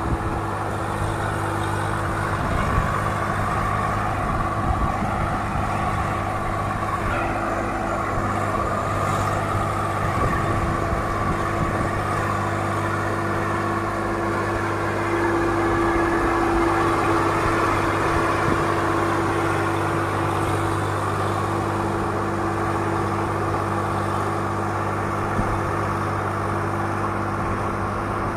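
Swaraj tractor's diesel engine running steadily under load, pulling a heaped load through deep sand, swelling a little louder a bit past the middle.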